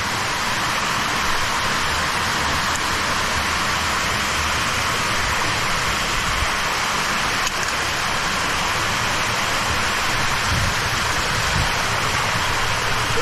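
Steady rush of water in a mountain gorge stream, a constant hiss without break, typical of water pouring over small falls and rocks.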